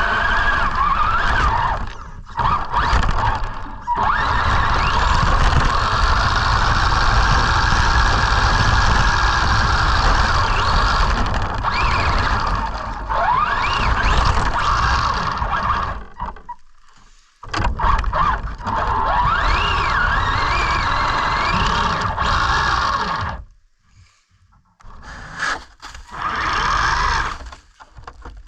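Arrma Senton RC truck's electric motor and drivetrain whining, the pitch rising and falling with the throttle, over a low rumble. It cuts out briefly several times.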